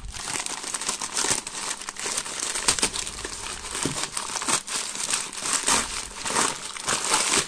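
Crumpled paper wrapping crinkling and rustling as hands pull it off a toy, a dense run of irregular crackles.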